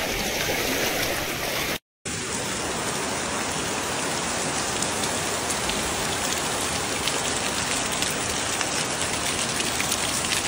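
Heavy rain falling on floodwater, a steady hiss with faint pattering drops. The sound drops out briefly about two seconds in, then the rain carries on unchanged.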